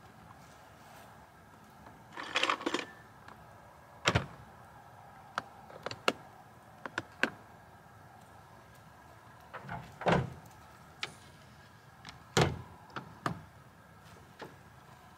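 Knocks, clicks and rustling as gear is handled in the bed of a pickup with a camper shell, with sharp thuds about four, ten and twelve seconds in. The shell's rear glass hatch is shut during the second half.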